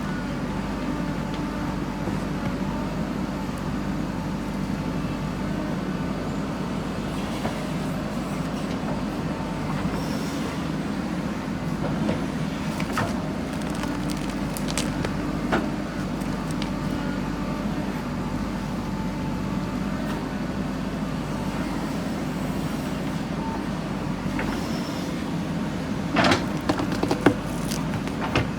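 Diesel engine of a JCB backhoe loader running steadily, with a few sharp metallic clanks, the loudest near the end.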